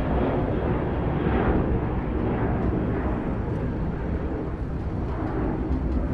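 Airplane engine noise: a steady rumbling rush that slowly fades.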